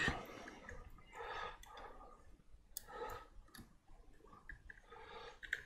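Faint handling of a cable connector being plugged into the extruder's stepper motor: a few small, sharp plastic clicks, with a close pair near the end, over soft fumbling sounds.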